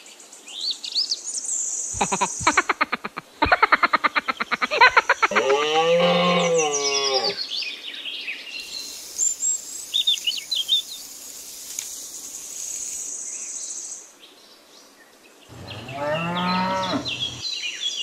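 A cow mooing twice: one long moo about six seconds in and another near the end, with birds chirping. Two quick runs of rapid clicking come before the first moo.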